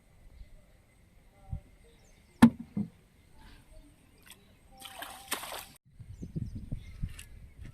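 Water sloshing and splashing, with a sharp knock about two and a half seconds in, a second one just after, and a hissing splash about five seconds in.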